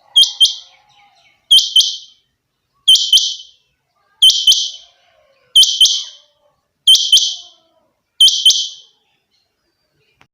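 Rain quail (chinga batair) calling: seven loud, sharp double-note calls, one about every second and a third, with silence between them.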